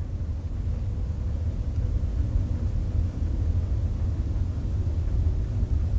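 Steady low rumble with no other distinct sound.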